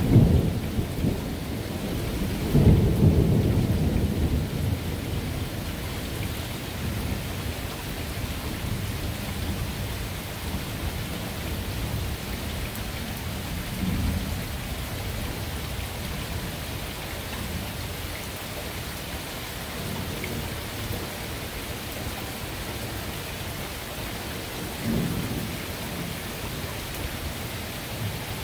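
Steady rain falling during a thunderstorm, with rolling thunder. The loudest rumble comes a few seconds in and fades, and fainter rumbles follow about halfway through and near the end.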